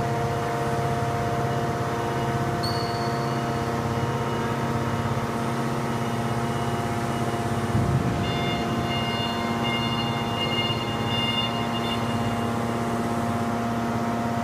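Steady electric hum of a large hydraulic car-crushing press's pump unit running, waiting to press. A faint high whine joins about eight seconds in.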